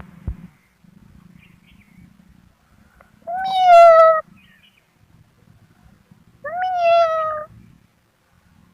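Kitten meowing twice, two drawn-out meows about a second long each, the pitch sagging slightly toward the end of each. A short knock comes right at the start.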